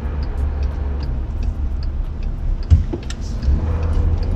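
Low, steady rumble of a car heard from inside the cabin while driving in stop-and-go traffic, with a single thump about two-thirds of the way through.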